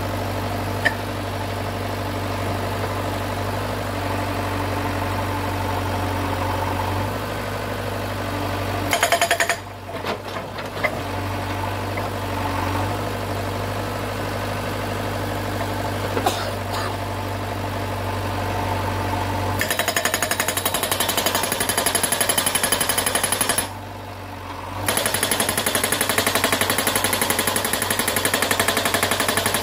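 JCB backhoe's engine running steadily, then its Korean SH43 hydraulic breaker hammering rock in rapid, even blows. There is a short burst about a third of the way in, then two long runs in the second half with a brief pause between them.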